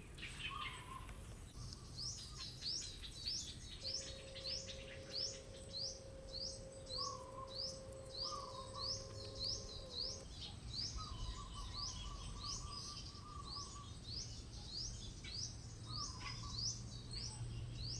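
Birds calling: one repeats a short, high, rising chirp over and over, about three every two seconds, while a lower trilling call comes and goes.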